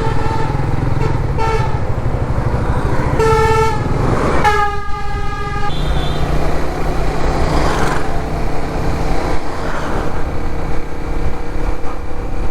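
Vehicle horns honking several short times and once for about a second, about four and a half seconds in, over the steady rumble of a motorcycle's engine and road and wind noise while riding on a highway.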